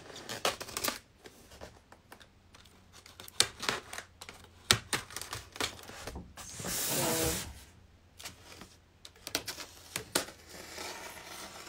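X-Acto knife slicing packing tape along the seam of a styrofoam shipping box: a string of sharp clicks and scratchy strokes, with a longer hissing scrape about seven seconds in.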